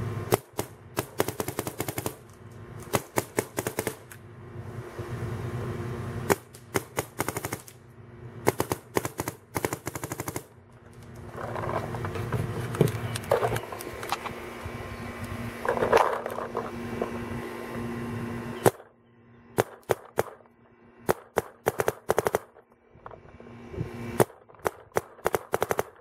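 Dye DM13 electronic paintball marker firing, in several rapid strings of quick sharp pops with short pauses between them.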